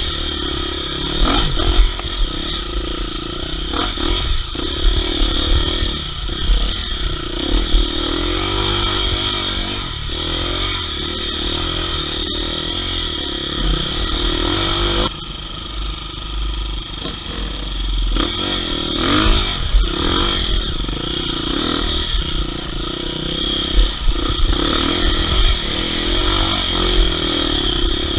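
Enduro dirt bike engine running under varying throttle on a rough trail, with scattered knocks and clatter from the ground. The engine note drops suddenly about halfway through, then picks up again.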